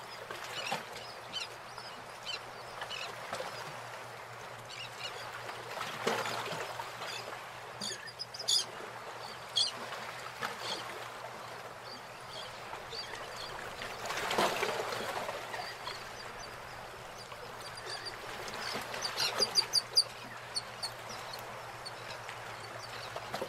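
Outdoor ambience of birds calling: many short, high chirps over a steady hiss, with a few louder swells and a cluster of chirps near the end. It cuts off suddenly.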